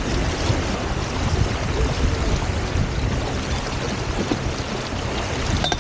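Wind buffeting the camera microphone over water rushing along the hulls of a Hobie Tiger F18 sailing catamaran under way: a steady rushing noise, heaviest in the low end.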